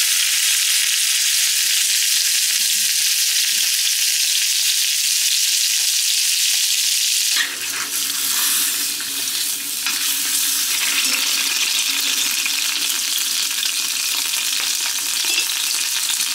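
Beef roll-up sizzling in hot oil in an iron frying pan, a loud, steady frying hiss. About seven seconds in, the sizzle changes in character.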